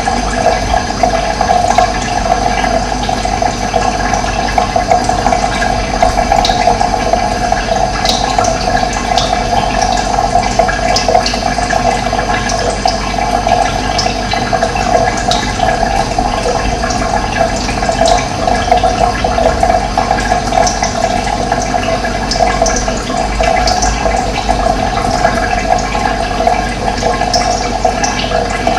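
Steady rush of running water, with short high bird chirps scattered over it.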